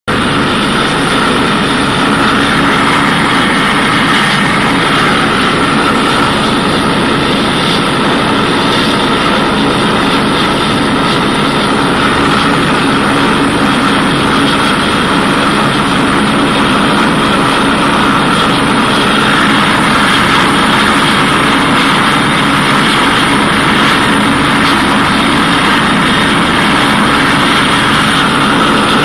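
Airbus Helicopters EC145's twin turboshaft engines and rotor running at a steady level, a high whine held over the rotor noise.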